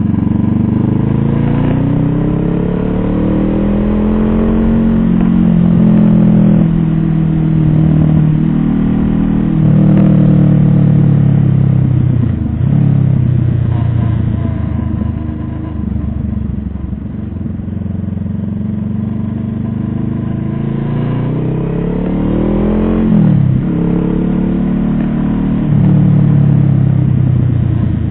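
A vehicle engine running under way. Its pitch climbs, drops sharply, then climbs again several times, as it accelerates and shifts gear.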